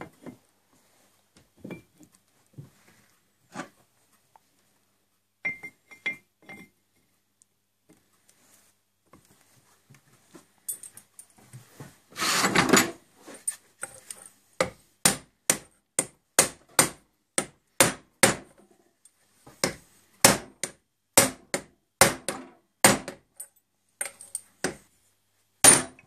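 Hammer blows on a tube drift, driving a part down into the metal headstock housing of a homemade lathe: about twenty sharp, ringing metallic knocks, roughly two a second, through the second half. Before them come a few light clinks of parts being handled and a brief scraping rattle.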